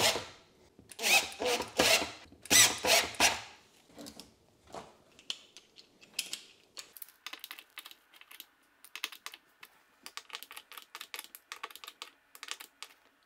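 Cordless impact driver starting Torx screws into a dishwasher door bracket in short bursts during the first few seconds. The rest is a hand screwdriver tightening the screws, a run of quick, faint clicks.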